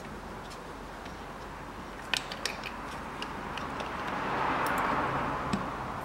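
A plastic power-steering fluid reservoir and its rubber hose being handled and fitted together: a few sharp clicks about two seconds in, then a rubbing, rustling sound as the hose is worked on, with single clicks near the end.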